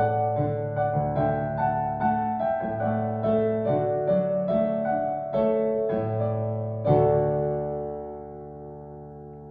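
Digital piano playing a slow, even sequence of notes and chords, closing with a louder final chord about seven seconds in that is held and gradually dies away.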